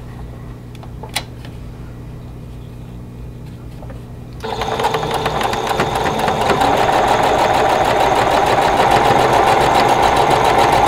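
Singer electric sewing machine stitching a seam through pieced quilt fabric, starting abruptly about four seconds in and then running steadily at speed with a fast, even needle rhythm.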